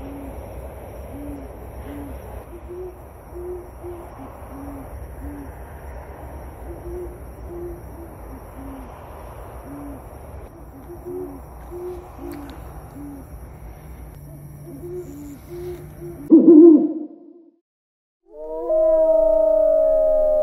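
Owl hooting: a long run of short, low hoots at two alternating pitches over a steady background hiss and hum. About sixteen seconds in, a brief loud call sliding downward breaks in. After a moment of silence, wolves begin howling together, several long held notes at different pitches.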